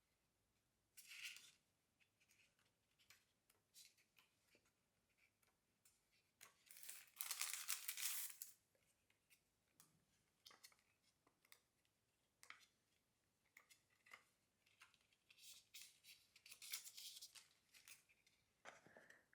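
Quiet handling of paper and stationery: scattered small clicks and taps, with longer stretches of rustling about 7 seconds in and again around 16 seconds.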